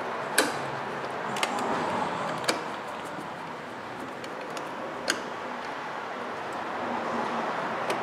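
A quarter-inch ratchet and socket tightening screws into the plastic blower-motor housing, making scattered sharp clicks and ticks. Four louder clicks stand out in the first five seconds, over a steady background hiss.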